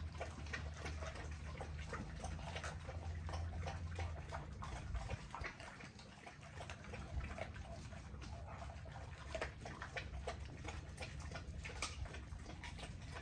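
Pitbulls chewing raw chicken leg quarters: wet, smacking chewing with irregular crunching clicks.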